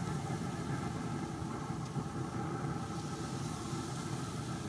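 Chicken kabobs sizzling on the hot grate of a pellet grill, over a steady mechanical hum.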